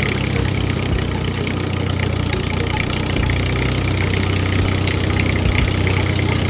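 An engine running steadily at idle, a continuous low drone with no change in speed.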